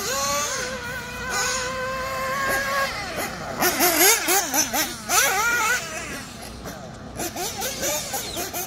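Nitro-powered 1/8-scale RC buggy engine screaming at high revs. It holds one steady high-pitched whine for about three seconds, then revs up and down in quick rises and falls as it works the throttle through the turns.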